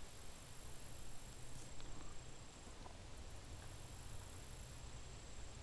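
Quiet outdoor ambience beside a pond: a faint low rumble and a thin, very high hiss that cuts in and out a few times, with no distinct event.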